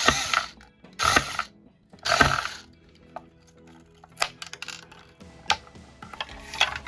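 Small electric screwdriver running in three short bursts about a second apart, backing out screws from the speaker's battery contact board, followed by a few light clicks of small parts being handled. Faint background music underneath.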